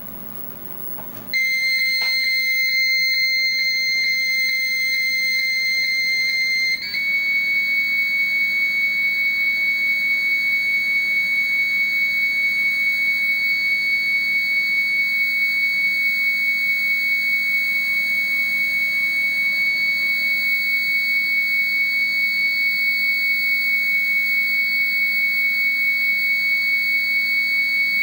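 Dial-up modem answering a call: a steady high-pitched answer tone starts about a second in, with faint clicks about twice a second, then about seven seconds in steps up slightly to the 300-baud answer carrier and holds steady, the sign that the answering modem has picked up and is waiting for the acoustic coupler to connect.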